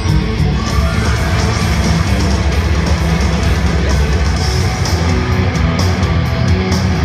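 Loud rock music with distorted electric guitar and a heavy bass and drum beat, played at arena volume and heard from the crowd.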